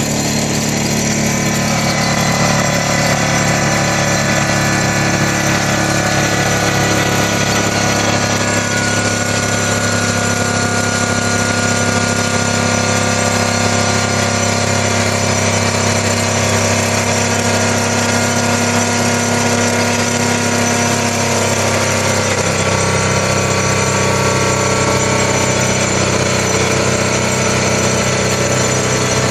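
Excavator-mounted vibratory pile hammer running, clamped onto a steel sheet pile and vibrating it into the ground. A loud, steady machine hum that shifts in pitch about three-quarters of the way through.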